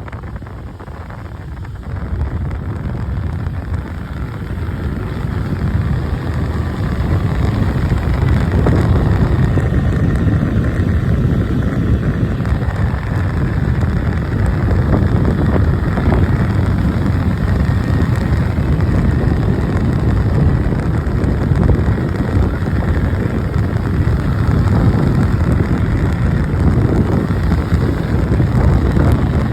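Wind rushing over the microphone of a moving motorcycle, with a low rumble of engine and road underneath; it builds over the first several seconds, then holds steady.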